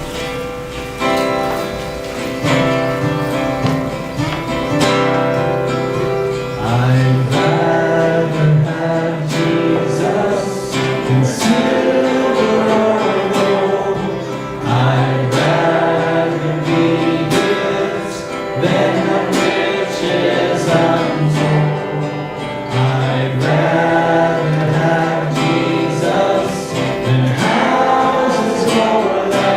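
Gospel-style worship song: voices singing together over guitar, with a low bass line and a steady beat.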